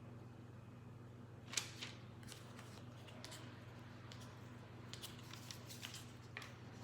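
Faint, scattered clicks and rustles of hands handling cookie dough and baking things, with the sharpest tap about a second and a half in and a few more taps near the end. A low steady hum runs underneath.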